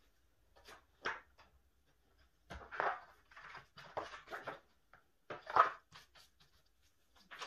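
Rustling and handling of a sheet of paper as it is fitted onto the open metal rings of a three-ring binder, in several short bursts. The loudest is a sharp tap about five and a half seconds in.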